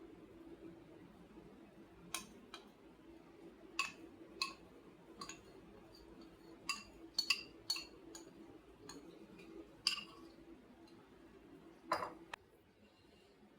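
Kitchenware clinking: about a dozen light, ringing clinks and taps, irregularly spaced, over a faint steady low hum.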